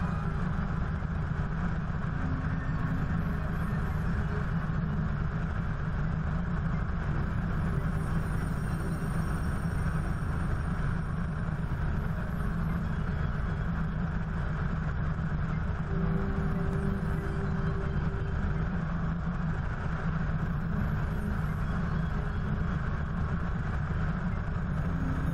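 Helicopter in flight: steady rotor and turbine drone mixed with wind rushing over a camera mounted on the outside of the nose.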